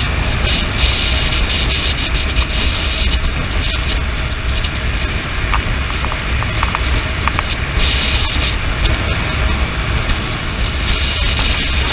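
Honda CB motorcycle riding at highway speed: the engine runs steadily under a constant rush of wind over the microphone, with a higher hiss that swells and fades several times.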